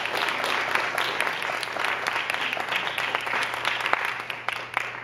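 Audience applauding: many people clapping together, easing off a little near the end.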